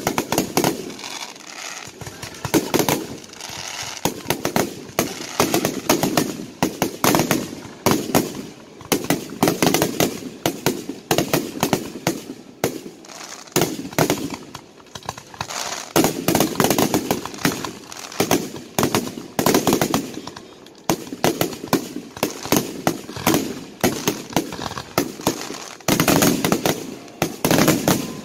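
Aerial fireworks show: a dense barrage of firework shells bursting, many sharp bangs a second overlapping without a break.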